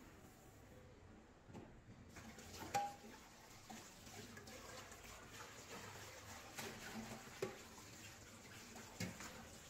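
Tap water running into a stainless-steel sink as aluminium pots are rinsed, starting about two seconds in, with a few sharp clanks of the pots against the sink.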